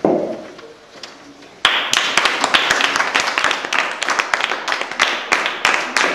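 A group of people clapping hands in applause, starting suddenly about a second and a half in and going on as dense, irregular claps. A brief loud noise comes right at the start, before the clapping.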